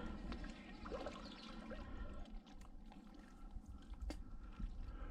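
Faint water lapping, with scattered small clicks and knocks.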